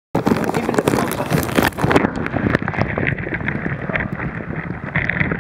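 Water sloshing and the plastic bag knocking and rustling around a waterproof camera sealed in a bag of water as it is thrown about, with many short knocks. About two seconds in, the hiss drops away and the sound turns duller.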